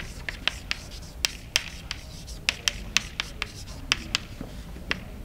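Chalk on a blackboard as an equation is written: an irregular run of over a dozen sharp taps and short scratches.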